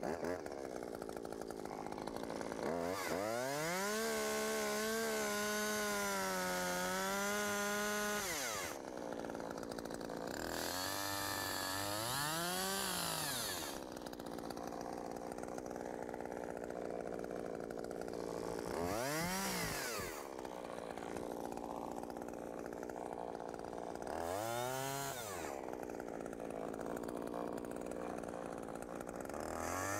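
Small chainsaw cutting a face notch into a tree limb: it revs up and holds at full speed for several seconds, then drops back to idle between three short bursts of throttle, and revs up again at the very end.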